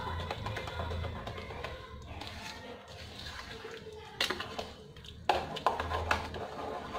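Steel spoon stirring a thick semolina-and-curd batter in a bowl, with a few sharp clinks of the spoon against the bowl in the second half.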